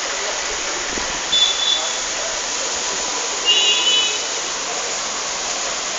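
Steady rain hiss. Two short high-pitched tones cut through it, a brief one about a second and a half in and a slightly longer one about three and a half seconds in.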